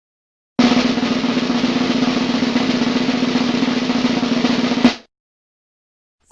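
A snare drum roll, used as a meme sound effect, lasting about four seconds and ending in a single sharp hit.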